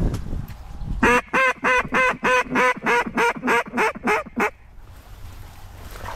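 Mallard duck call blown in a fast run of about a dozen evenly spaced quacks lasting about three and a half seconds, calling to a passing duck.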